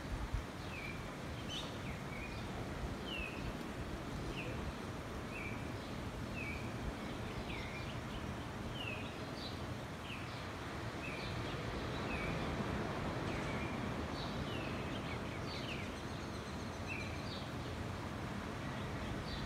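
A small bird chirping over and over, short falling chirps roughly every two-thirds of a second, over a steady outdoor rushing background.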